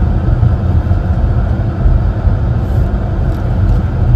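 Steady low rumble of a car on the move, heard inside the cabin: road and engine noise.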